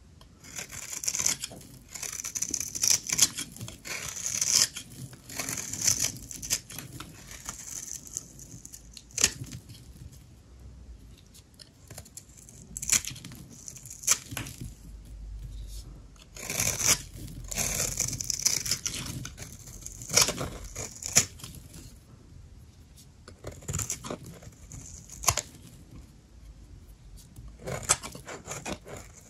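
Dry soap being cut and crumbled by hand: crisp, crackling strokes that come in irregular bursts with sharp clicks between them.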